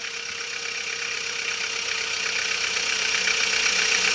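Ford Ranger's WL-T turbodiesel engine idling, with a steady hum and a fast, even diesel tick, getting slightly louder toward the end.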